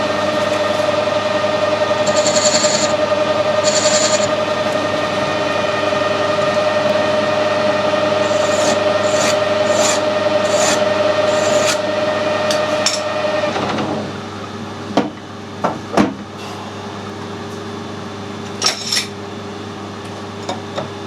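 Metal lathe running steadily while cutting a steel repair stud, with short high scraping sounds from the cut. About fourteen seconds in the lathe stops, leaving a lower background hum, and a few sharp metallic clinks follow.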